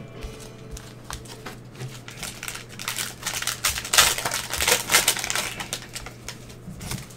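Cellophane wrappers of trading-card cello packs crinkling as gloved hands handle and open them, with a busy stretch of rapid crinkling in the middle.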